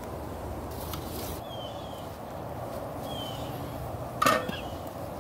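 Steady rushing of a big aluminium pot of broth at a rolling boil on an outdoor burner, with short high bird chirps every second or two. A little past four seconds in comes one sharp metal clank of the pot lid.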